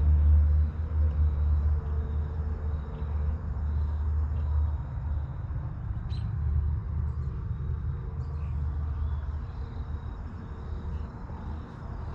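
Wind buffeting the microphone: an uneven low rumble that eases off over the second half.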